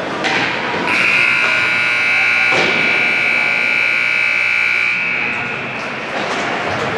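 Ice hockey arena's horn buzzer sounding one long steady blast of about four seconds, the signal for the end of a period, over rink crowd noise. A sharp knock comes partway through.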